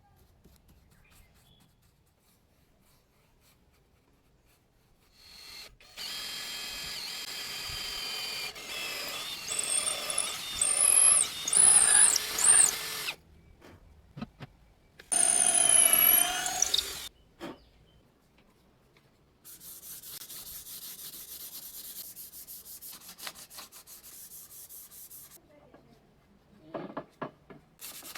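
Power drill running in bursts on wood, its whine rising and falling in pitch, then a stretch of steady high rasping, with a few knocks near the end.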